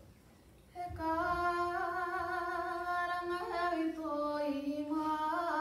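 A girl singing unaccompanied into a microphone. She holds long notes that start about a second in and shift gently in pitch a few times.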